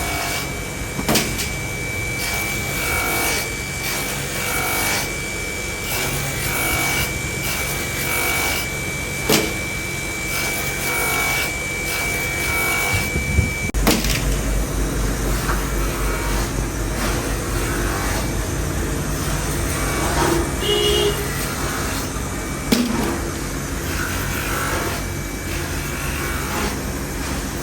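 Workshop machinery running continuously. A steady high whine runs with a rhythmic rasping for about the first half, then stops abruptly and gives way to a lower rumble, with a few sharp knocks.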